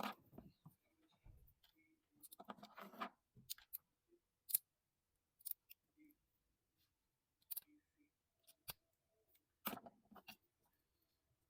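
Faint sharp clicks at irregular intervals with brief spells of rustling handling noise: terminal pins being worked into a new ignition coil connector housing during a repair for an engine misfire.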